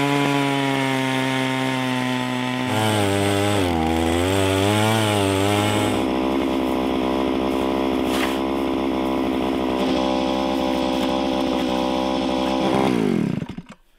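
Gas-powered Eskimo ice auger engine running at high revs while its 10-inch bit bores through lake ice. Its pitch wavers up and down for a few seconds as it works under load, then holds steady, and near the end it drops and stops.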